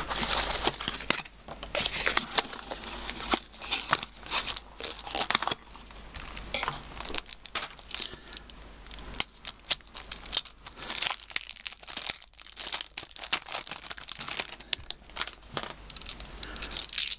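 Thin clear plastic wrapping crinkling and tearing in an irregular stream of sharp crackles as it is pulled off a new 3x3 speed cube, easing a little about two-thirds of the way through.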